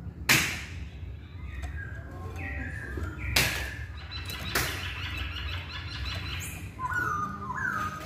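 A caged Poksay Hongkong (black-throated laughingthrush) calling with short whistled and stepped notes, clearest near the end. Three loud, sharp knocks come just after the start, at about three and a half seconds and at about four and a half seconds, over a steady low hum.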